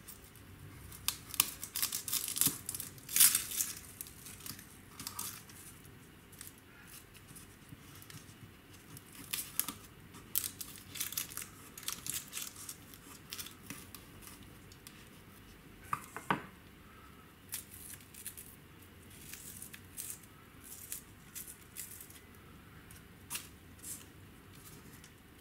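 Small paring knife peeling and trimming a shallot: the dry papery skin crackles and tears in irregular short scrapes and clicks, busiest and loudest in the first few seconds.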